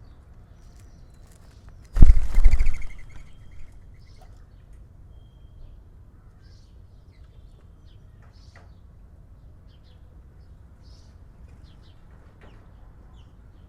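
Small birds chirping and tweeting in short, scattered calls. About two seconds in there is one loud, rapid fluttering burst lasting about a second, much the loudest thing heard.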